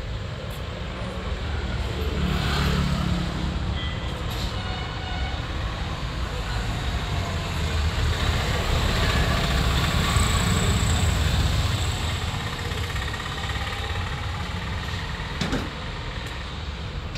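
Low rumble of passing road vehicles, swelling twice and fading, with a single sharp click near the end.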